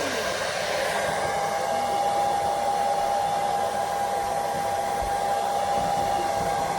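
Hand-held hair dryer running steadily: an even rushing of air with a steady hum under it.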